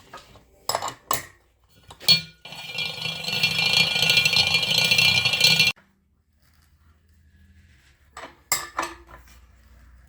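Metal parts and tools clinking and knocking a few times, with a loud steady noise in the middle for about three seconds that cuts off suddenly.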